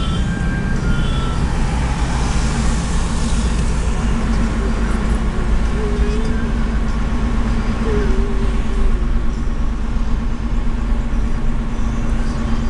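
Car driving along a city road, heard from inside the cabin: a steady low rumble of engine and tyres, with a steady engine hum setting in about four seconds in.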